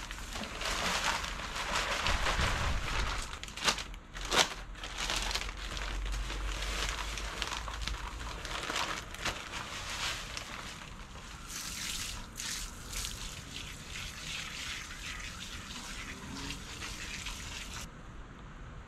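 Potting soil and granular fertilizer poured from plastic bags into terracotta pots: a continuous grainy pouring rustle with the bags crinkling, and two sharp clicks about four seconds in.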